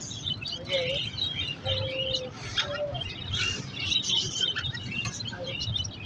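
Many caged pet birds, parakeets, lovebirds and cockatiels among them, chirping together in short high calls. Over the chirping come a few short, low, steady notes about one, two and three seconds in.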